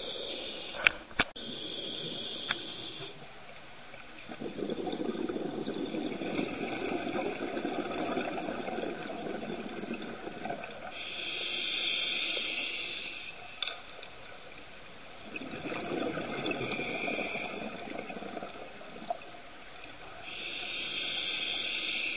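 Scuba diver breathing through a regulator underwater: three hissing in-breaths about nine seconds apart, each followed by a longer bout of gurgling exhaled bubbles. Two sharp clicks about a second in.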